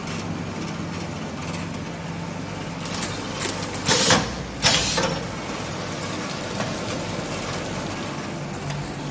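Automatic L-type sealer shrink wrapping machine running with a steady mechanical hum. About four seconds in come two short, loud hisses about half a second apart as the sealing frame cycles.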